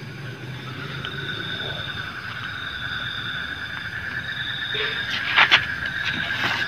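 Night insects chirring steadily in two high, even tones over a low hum, with two sharp clicks about five and a half seconds in and another near the end.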